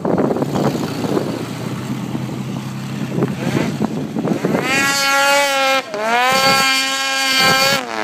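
Polaris 800 RMK snowmobile's two-stroke twin revving hard as the sled approaches: a rough distant engine noise at first, then a loud high-pitched wail from about five seconds in, its pitch climbing, with the throttle chopped briefly twice and picked up again.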